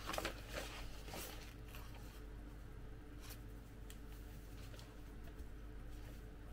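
Faint, scattered rustles and light clicks of thin plastic being handled: a vinyl inflatable reindeer toy being unfolded out of its packet, a few small crackles in the first second and a couple more around the middle.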